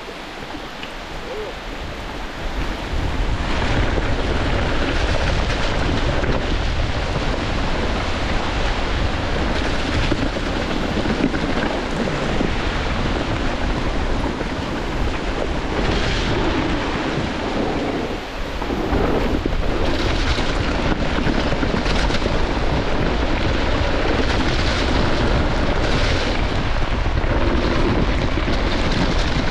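Wind buffeting the microphone during a downhill mountain-bike descent on a wet trail, with the rumble and rattle of the bike over the ground. The noise builds over the first few seconds as speed picks up, then stays steady and loud.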